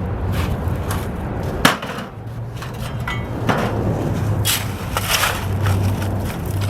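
Hand tools scraping and knocking in gravelly silt while a streambed is dug out, with a sharp knock about 1.7 seconds in. A steady low hum runs underneath.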